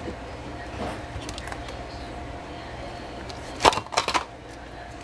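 Small tools and phone parts tapping and clinking on a work surface while a phone's back-cover screws and parts are taken off: scattered light clicks, with a louder cluster of clinks about three and a half to four seconds in.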